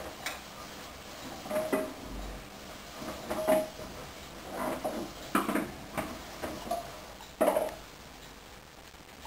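Hoover DYN 10124DP front-loading washing machine drum turning a full 10 kg load of sheets in the main wash: a run of irregular thuds and light clinks, about one a second, as the load tumbles.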